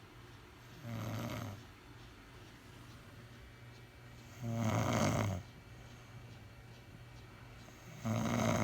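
A woman snoring in her sleep: three snores about three and a half seconds apart, each lasting under a second, the first one softer than the other two.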